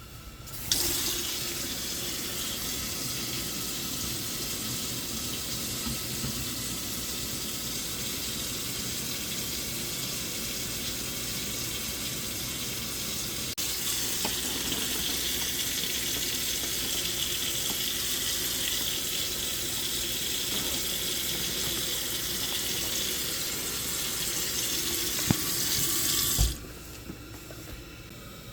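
Water running steadily from a tap. It stops abruptly near the end, with a couple of short knocks just before.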